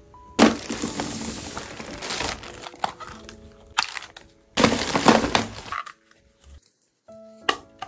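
Clear plastic bag wrapping crinkling loudly in two bursts, the first about two seconds long and the second about a second, as a plastic toy case is handled in it; a single sharp click comes near the end. Soft background music runs beneath.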